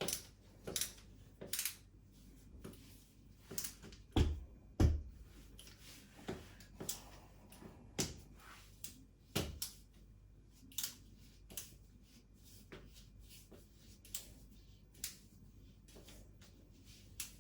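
Irregular clicks and light knocks of metal hanging-rail parts being handled and fitted on the wall, with two heavier thumps about four seconds in.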